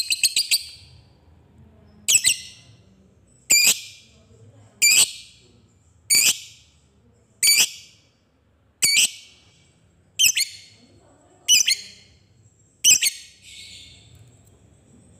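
Lovebird ending a fast chattering trill just after the start, then giving short, sharp single calls, evenly spaced about one every 1.3 seconds, nine in all. These are the 'ngetik' (typing) calls that keepers prize alongside the long 'ngekek' chatter.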